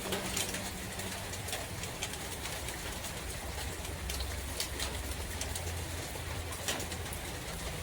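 Rain falling in a forest: a steady hiss with scattered sharp drips, over a low, steady wind rumble.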